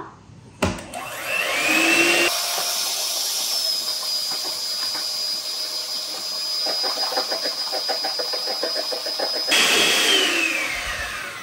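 An electric hand mixer is switched on with a click and its motor whine rises to speed. It runs steadily, whipping hot crème anglaise in a stainless steel bowl to cool it and beat air into it. A rapid ticking joins it for a few seconds in the second half, and near the end the whine falls as the motor winds down.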